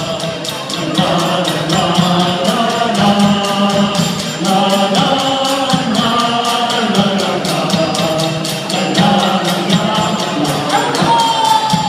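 Live pop music with group singing over a fast, even percussion beat, heard over a large PA.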